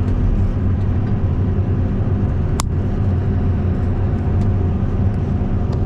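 Caterpillar 320 D2 hydraulic excavator's diesel engine running steadily, with a single sharp click about two and a half seconds in.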